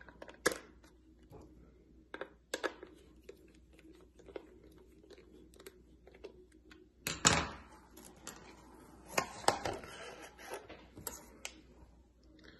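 Irregular clicks, taps and a brief rustle of a handheld digital pyrometer's plastic case and battery compartment being handled. The loudest comes about seven seconds in.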